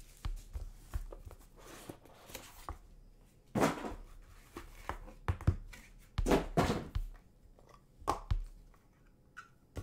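Hands handling a cardboard trading-card box and the hard plastic card holders inside it: a few short scrapes and rustles with light knocks, separated by quiet stretches.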